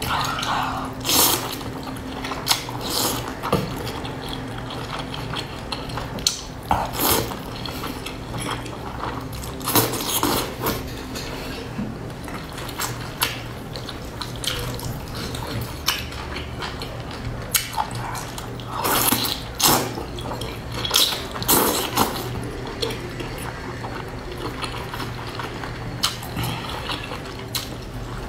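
Close-miked wet slurping and chewing of wide oily flat noodle sheets, in irregular bursts of loud slurps and mouth smacks.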